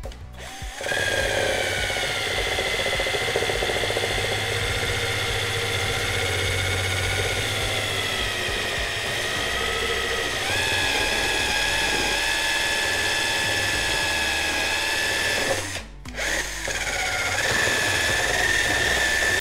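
Cordless drill spinning a non-woven abrasive buffing pad against the miter saw's metal bed, which is wet with rust remover: a steady motor whine with the scrub of the pad. It starts about a second in, its pitch shifts slightly a couple of times, and it stops briefly near the end before starting again.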